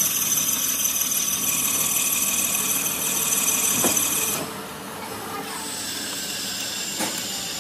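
Metal lathe cutting an engine cylinder sleeve: a steady, high-pitched ringing whine and hiss from the tool on the spinning sleeve. About four seconds in the cut stops and the sound drops to a quieter, steady machine hum, with one sharp click near the end.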